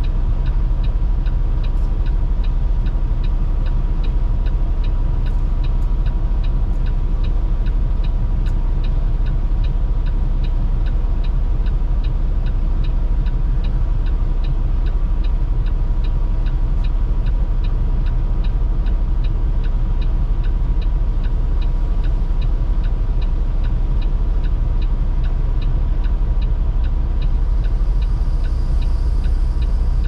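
Semi-truck diesel engine idling, a steady low rumble heard from inside the cab, with an even ticking about twice a second and a thin steady whine over it.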